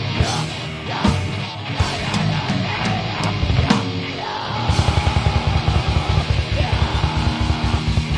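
A heavy metal band playing live. For the first four and a half seconds the low drumming drops out, leaving guitar and a few scattered drum hits. Then the full band comes back in with rapid, even bass-drum beats under the guitars.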